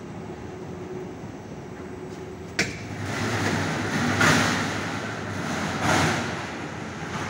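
Heated-roller carpet embossing machine running, a steady mechanical rumble and hum from its turning rollers. A sharp click about two and a half seconds in, then the noise swells louder a couple of times.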